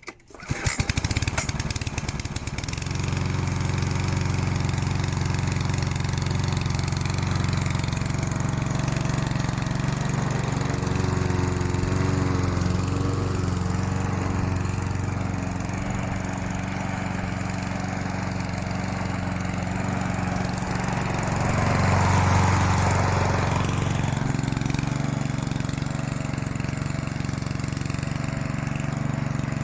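Yardworks 173cc push lawnmower engine starting on the pull cord from cold, catching within about a second and then running steadily, with a brief rise in loudness about two-thirds of the way through.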